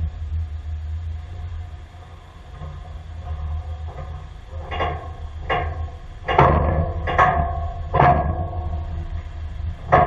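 John Deere 310D backhoe's diesel engine running with a low steady rumble as the machine is loaded onto a trailer. About halfway in, a run of five metallic clanks with ringing comes less than a second apart, and one more comes at the end.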